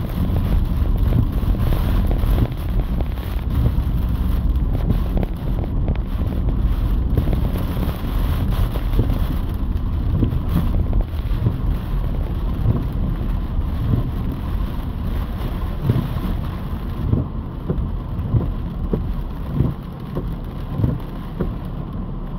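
Heavy rain pelting a car's roof and windshield from inside the cabin: a dense patter of drops over a steady low rumble of the car and road.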